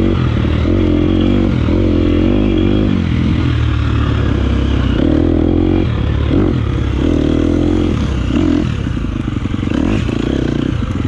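250cc four-stroke single-cylinder dirt bike engine under way, its note rising and falling in repeated surges as the throttle is opened and closed, settling to a steadier note near the end.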